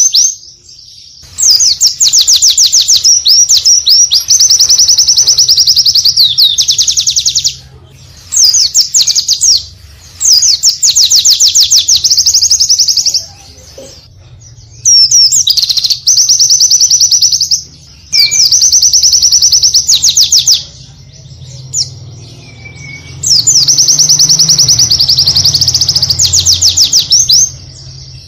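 A small songbird singing loudly in long phrases of very rapid, high trills and chatter. There are about six phrases, each a few seconds long, with short pauses between them.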